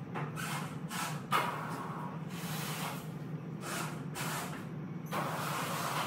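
Remote-controlled electric winch on a car-hauler trailer running with a steady low hum as it lets a car down off the trailer, with a hissing rush that comes and goes several times and a single knock about a second and a half in.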